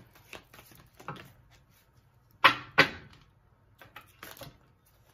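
Tarot deck being shuffled and handled at a table: light card flicks, then two sharp clacks about a third of a second apart midway through.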